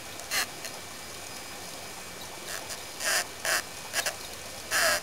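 A tiny DC motor run by a solar engine circuit whirs in about five short bursts, the longest near the end. Each burst is the capacitors' stored charge being released as a pulse to the motor. The little cog on its shaft hits the side of the plastic cup.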